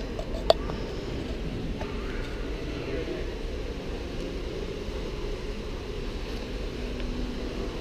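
Hotel lobby ambience: indistinct background voices over a steady low rumble, with one sharp clack about half a second in.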